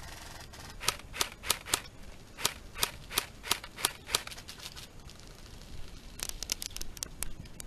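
Airsoft gun firing about ten sharp single shots, roughly three a second, then a faster, quieter flurry of clicks near the end.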